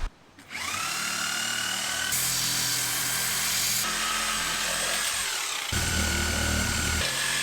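Electric power tool spinning up and cutting through a tire's rubber tread, its motor whine shifting and dipping in pitch a few times as the blade loads up.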